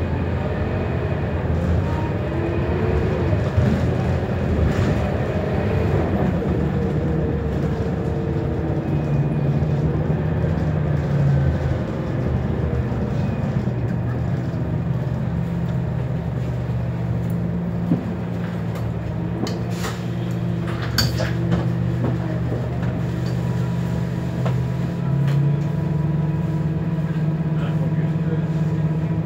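Scania K230UB bus's five-cylinder diesel engine heard from inside the saloon while the bus is under way, its pitch rising and falling over the first few seconds as it pulls away and changes gear, then running steadily. A few sharp clicks or rattles come about two-thirds of the way through.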